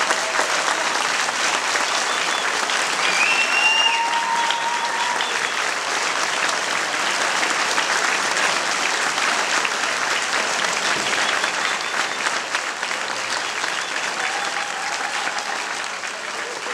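Audience applauding, a dense steady clapping that fades a little toward the end, with a few brief calls from the crowd over it.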